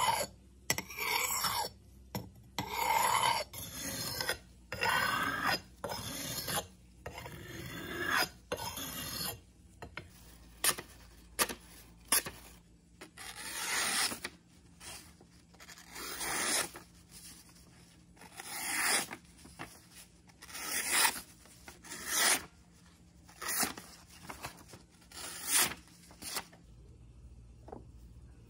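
Repeated hand scraping strokes of an abrasive on the rusted cleaver, as in filing, sanding or honing the metal. The strokes come close together at first, then settle into a steady rhythm of a little more than one a second, and stop shortly before the end.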